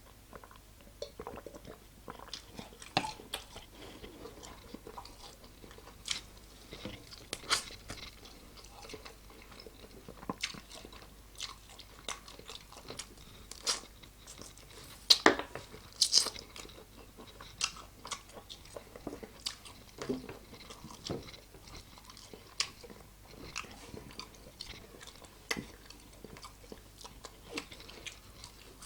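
Close-up mouth sounds of someone eating chicken wings: irregular crunching bites and wet chewing, with the loudest crunches about halfway through.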